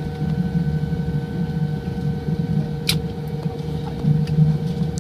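Steady hum of an airliner cabin, inside a Boeing 787-9, with a constant whining tone above it and a single sharp click about three seconds in.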